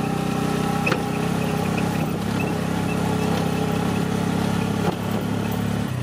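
A small engine running steadily at an even speed, with a light knock about a second in.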